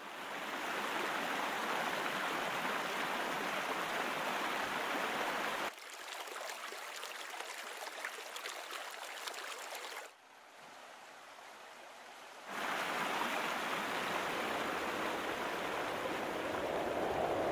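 Rushing water. A waterfall's steady rush changes about six seconds in to a thinner, rippling flow of a stream over rocks, drops quieter around ten seconds, then the full rush of falling water returns at about twelve and a half seconds.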